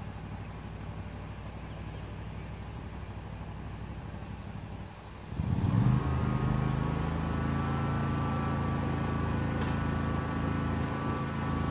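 Commercial Bobcat zero-turn mower's engine idling low and steady, then throttled up about five seconds in, after which it runs louder and steady at speed.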